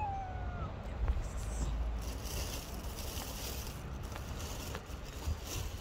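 Tabby cat gives one short meow right at the start, falling in pitch, followed by a steady low rumble.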